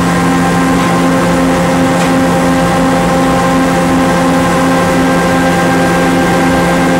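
Heavy machinery running steadily: a loud, even drone of hum tones with a throb about twice a second and a few faint ticks.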